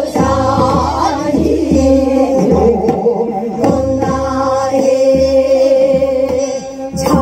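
Korean Namdo folk song sung by female voices with heavy vibrato, over a held instrumental tone and low beats of a barrel drum (buk). There is a sharp knock near the end.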